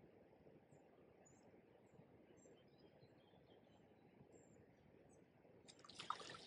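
Faint steady murmur of river water with small birds chirping high above it, then a short splash on the river's surface about six seconds in.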